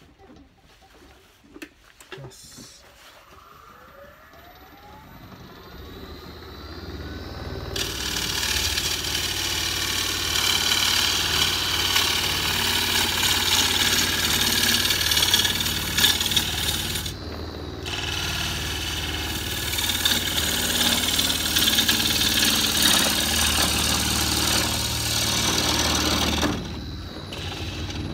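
A few handling clicks, then a wood lathe spinning up with a rising whine. After that a bowl gouge cuts the spinning blank of green cherry wood with a loud, steady rushing shave, which breaks off briefly near the middle and stops shortly before the end while the lathe keeps running.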